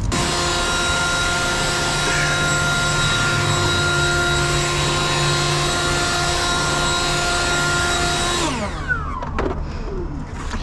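An electric motor-driven cleaning tool switched on, running steadily with a high whine over a loud hiss, then switched off about eight and a half seconds in and spinning down with falling pitch.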